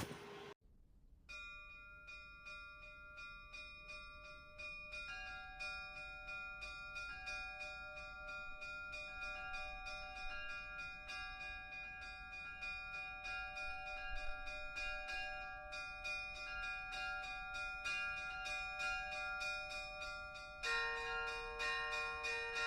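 Church bells ringing quietly in a quick, steady run of strikes. The ringing grows louder about five seconds in, and a lower bell joins near the end.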